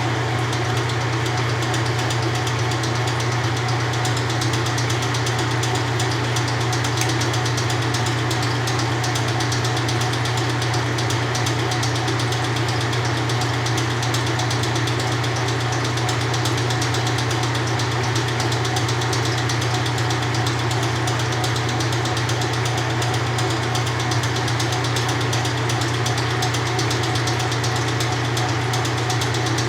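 1993 Kenmore 80 Series top-load washer running empty on a dry test, its motor and drive giving a steady low hum with mechanical noise over it, unchanging throughout.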